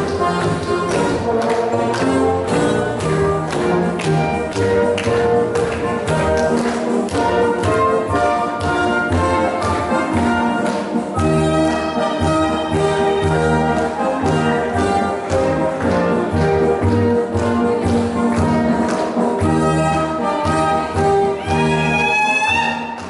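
Lively Czech folk dance music with brass instruments over a steady beat, changing to a new tune about halfway through and fading out near the end.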